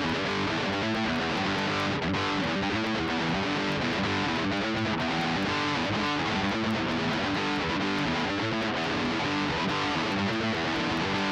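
Epiphone Les Paul 100 electric guitar strummed and picked through a Jam Buddy effects unit, playing a steady, continuous rhythmic part.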